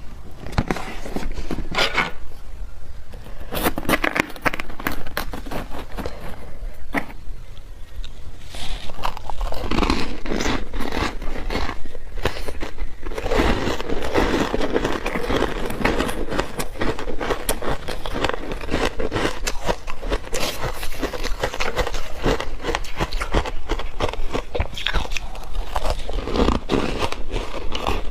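Chunks of ice dusted with matcha milk powder bitten and chewed up close, in a dense run of crunches, cracks and crackles that hardly pauses.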